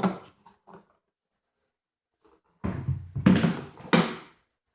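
Wooden typewriter carrying case being handled: a run of clunks and knocks starting a little under three seconds in, with two sharp strikes about three and four seconds in.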